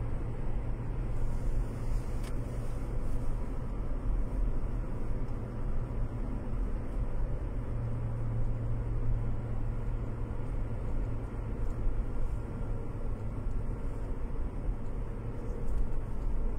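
A car driving at speed, heard from inside the cabin: a steady low rumble of road and engine noise.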